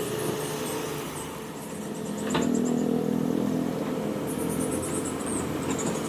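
Hydraulic excavator's diesel engine running, growing louder about two seconds in as it takes up load, with a single sharp knock at that moment.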